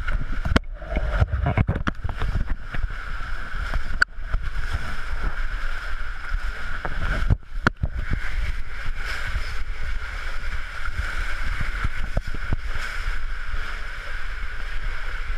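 Water rushing and a body sliding down an enclosed water-slide tube, a steady loud rumble of water. Sharp knocks as the rider bumps the tube walls, several in the first two seconds, one about four seconds in and a cluster at seven to eight seconds.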